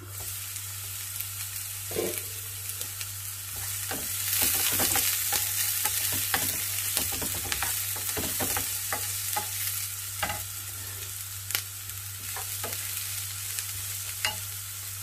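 Diced carrots, green beans and spring onion sizzling in oil in a non-stick frying pan, stirred with a wooden spoon that knocks and scrapes against the pan. The sizzle is loudest from about four seconds in.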